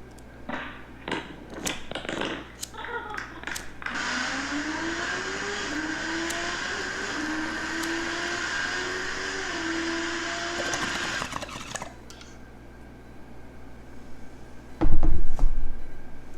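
Motor vehicle running: a steady rushing noise with an engine note that rises and wavers for about eight seconds, after a few sharp clicks. A loud low thump comes near the end.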